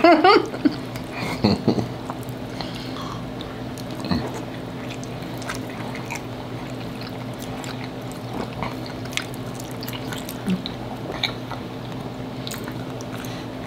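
Close-miked eating: quiet chewing with scattered small clicks and scrapes of metal forks on a plate, over a steady background hum.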